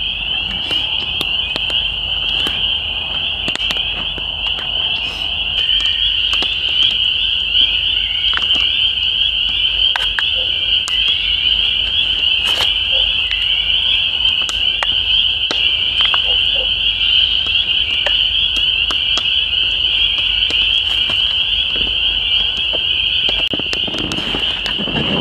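Chorus of many spring peepers: a dense, steady, high-pitched peeping that never lets up. Over it come scattered sharp pops and crackles of a wood campfire.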